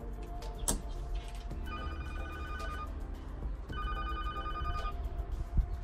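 Keypad door intercom calling: a click, then two ring tones, each a little over a second long with a short gap between them, the intercom ringing the flat or office it has dialled.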